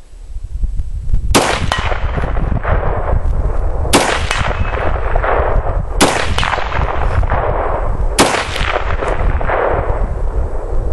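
SVT-40 Tokarev semi-automatic rifle firing 7.62x54R rounds: four shots about two seconds apart, each followed by a long rolling echo.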